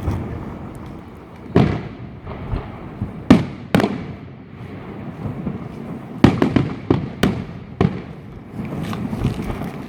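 New Year's fireworks going off: sharp bangs at irregular intervals, including a quick cluster of several bangs about six seconds in, over a continuous rumble of more distant bursts.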